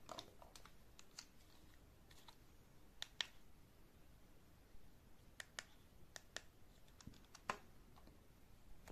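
Faint, irregular clicks and taps, about a dozen scattered through several seconds, against near silence; the loudest come in a close pair about three seconds in and once more near the end.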